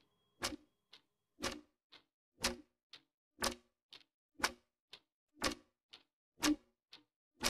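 Clock ticking sound effect: a louder tick and a softer tock alternating, about two a second, with silence between them.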